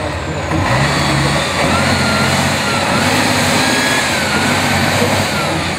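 Tatra trial truck's diesel engine working hard under load as the truck climbs a steep dirt slope, its pitch rising and falling as the throttle is worked.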